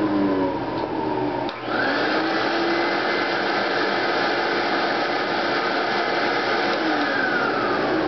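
Late-1970s all-metal Eureka Model 653 canister vacuum cleaner running with a steady motor whine and rush of air. About a second and a half in there is a short click and dip, after which the whine rises and holds higher, sinking back down near the end.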